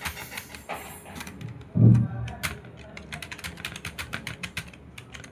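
Computer keyboard typing: a run of quick keystroke clicks, several a second, with short pauses between words. About two seconds in there is a brief low hum, the loudest sound.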